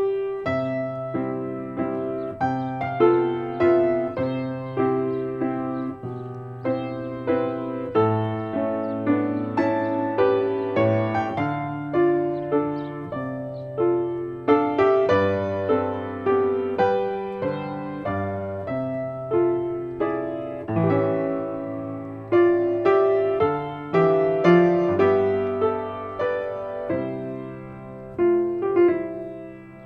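Background piano music: a melody of struck notes, each dying away, over low bass notes.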